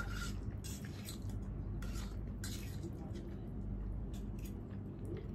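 Eating sounds from a noodle meal: a utensil clinking and scraping against a plate or bowl in several short, irregular sounds over a steady low hum.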